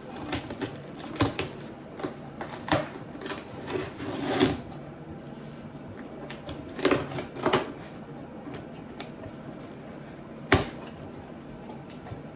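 A box being opened by hand: irregular clicks, rustles and scrapes of the packaging, with a busier run of handling about two to four seconds in and a single sharp knock near the end.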